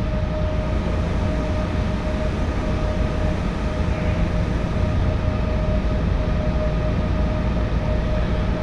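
Trane air conditioner running after a replacement room-temperature sensor was fitted: a steady fan noise with a constant mid-pitched hum and a low rumble.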